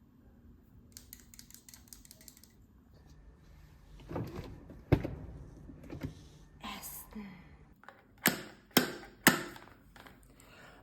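Handling noises: a quick rattle of small clicks, a louder knock about five seconds in, then three sharp clicks about half a second apart.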